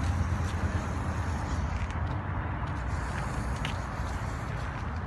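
Lego Technic remote-control car with Power Functions motors driving on a concrete sidewalk: motors running and small plastic wheels rolling, under a steady low rumble, with a few faint clicks.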